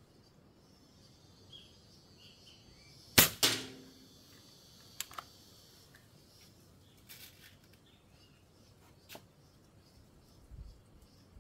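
A 5.5 mm spring-piston air rifle fires once: a sharp crack, then a second report a fraction of a second later, with a brief ringing tone after it. A few light clicks of handling follow.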